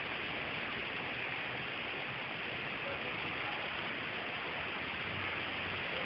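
Heavy rain pouring down in a storm: a steady, even hiss with no breaks.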